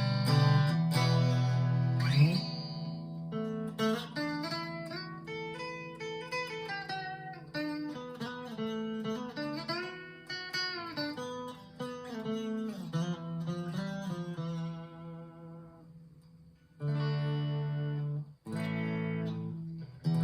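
Electric guitar played with a clean tone, recorded on a phone. It opens with strummed chords, moves into a picked single-note melody that fades out, then ends on two more strummed chords.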